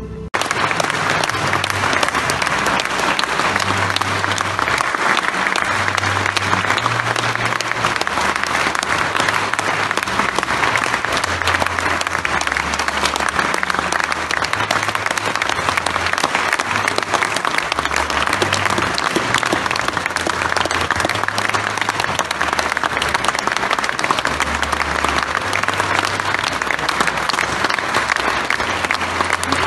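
A large crowd applauding steadily in one long, unbroken ovation.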